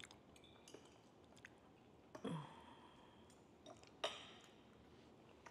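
Faint chewing and small mouth noises of people eating ackee and saltfish with fried festival dumplings. A short hum falls in pitch about two seconds in, and a sharp click comes about four seconds in.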